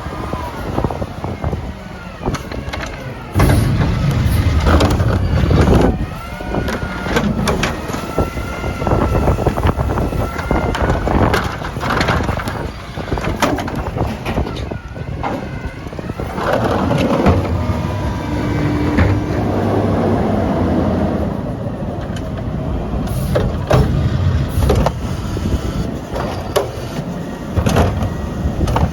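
Mack LR McNeilus Meridian garbage truck with a Curotto Can at work: the diesel engine revs up in surges to drive the hydraulics, with a pitched whine held for several seconds in the first half, and repeated sharp metal clanks and bangs from the arm, can and carts.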